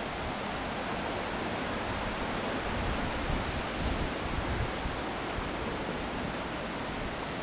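Steady rushing of a fast-flowing river in spate, with wind rumbling on the microphone.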